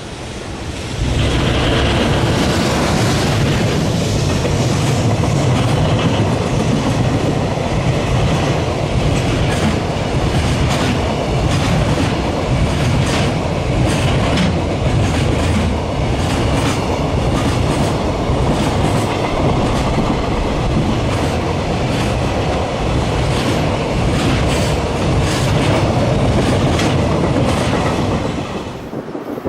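Freight train passing close by, its wagon wheels clicking over rail joints in a long run of beats over a heavy rumble. It comes in suddenly about a second in and eases off near the end.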